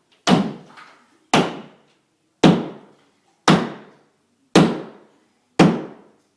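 Hammer blows against a sheetrock wall: six even strikes about a second apart, each a sharp knock that fades quickly.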